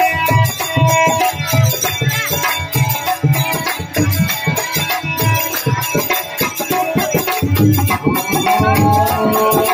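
Live devotional folk music: a harmonium holding steady chords over a hand drum beating a steady rhythm, with jingling hand percussion rattling on every beat.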